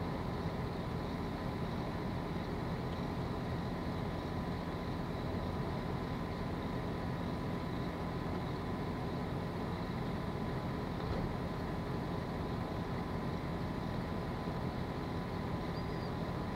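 Steady low hum of distant machinery, with a faint high whine held on one pitch.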